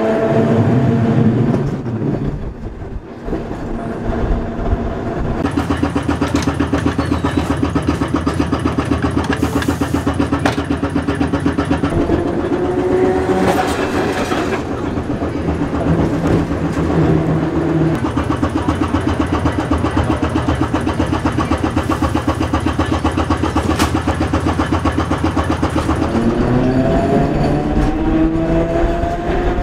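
Air compressor of a 1923–24 Perley A. Thomas 900-series streetcar clunking rapidly and steadily as it pumps air for the brakes and doors. A motor whine falls away near the start. Another streetcar passes about halfway through with its own rising whine, and near the end a rising whine returns as the car pulls away.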